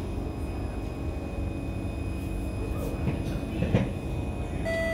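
Steady low hum inside a Kawasaki C151 metro car standing at a platform, with a short clunk about three-quarters of the way through. Near the end an electronic chime begins, the on-board PA chime that comes before a train announcement.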